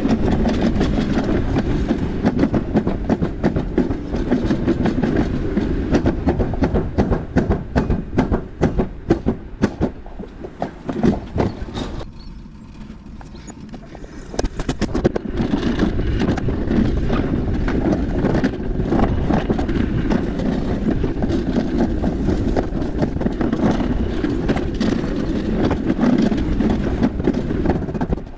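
Alpine coaster sled running along its steel track: a steady rattling clatter of the wheels on the rails. The clatter eases off for about two seconds midway, then picks up again.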